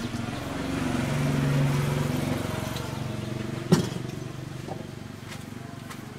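A small engine running, growing louder to a peak about a second and a half in and then fading, with one sharp knock midway.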